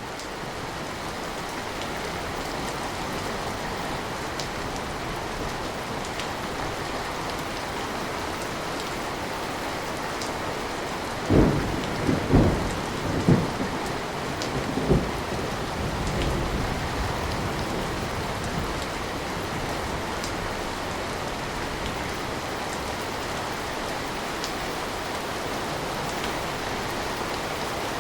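Steady, even rain, with a few faint drop ticks. About eleven seconds in comes a peal of thunder: several loud, deep cracks over about four seconds, then a low rumble that fades back into the rain.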